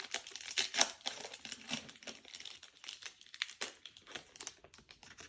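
Trading-card pack wrapper crinkling as the cards are handled: irregular crackling rustle that tails off shortly before the end.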